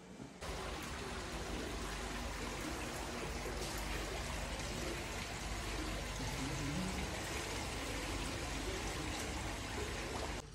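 Steady rush of running water from an indoor pool's circulating flow, cutting in suddenly about half a second in.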